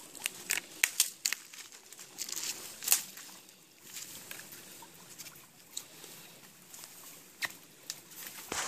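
Footsteps on dry leaf litter and twigs, with branches and rhododendron brush snapping and rustling as someone scrambles over rocks and fallen limbs. Irregular sharp crackles come thick over the first three seconds, the loudest about three seconds in, then only now and then.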